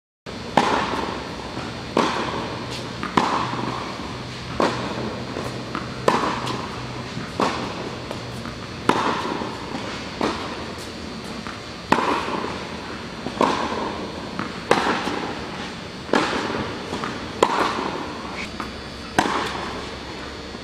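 Tennis rally on an indoor court: a sharp racket strike on the ball about every one and a half seconds, with fainter ticks in between, each ringing on in the hall's echo.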